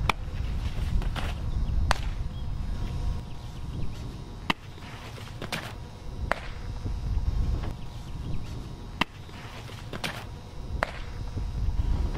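A softball smacking into a catcher's leather mitt again and again: sharp snaps a second or two apart, with fainter swishes between them. Wind rumbles on the microphone underneath.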